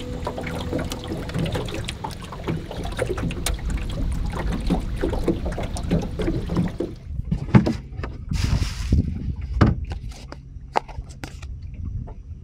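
Water slapping and gurgling against the hull of an aluminum jon boat under way, with frequent small knocks. About seven seconds in this gives way to quieter handling noise from plastic bait cups: scattered clicks and a short rustling hiss.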